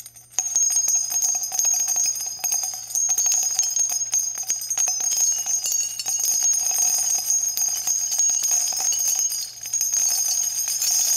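Intro jingle of jingling bells: high ringing tones with many quick light strikes.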